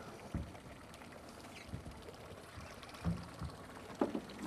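Water lapping against a small drifting boat, with a few soft low knocks.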